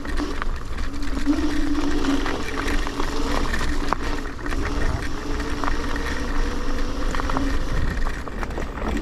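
Electric scooter motor whining steadily under load while climbing a slippery off-road track, over low wind rumble on the microphone, with scattered small knocks and rattles from the rough ground.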